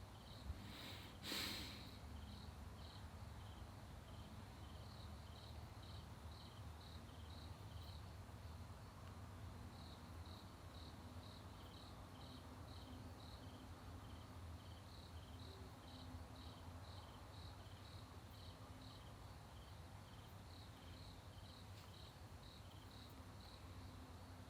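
Cricket chirping faintly, about two chirps a second in runs broken by short pauses, over a steady low hum. A brief knock and rustle come about a second in.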